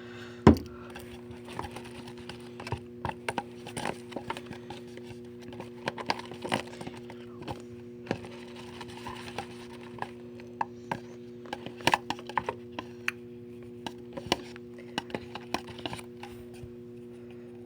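Glue-and-laundry-detergent slime being mixed in a bowl: irregular sticky clicks and squelches, with a sharp knock about half a second in. A steady low hum runs underneath.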